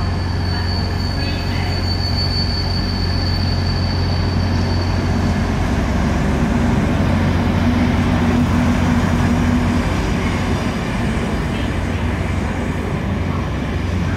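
Colas Rail Class 43 HST power car hauling Network Rail test-train coaches past on the through line: diesel engine running with a steady low hum and wheels on rail, and a high whine during the first few seconds.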